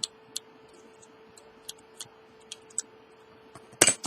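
Small scattered clicks and taps of hands and a tool handling an opened phone's internals as the battery cable is worked back through, with one louder knock near the end. A faint steady hum runs underneath.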